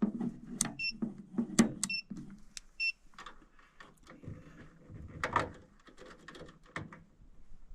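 Clicks and knocks of hands working at the furnace wiring with test leads, with three short electronic beeps about a second apart in the first three seconds.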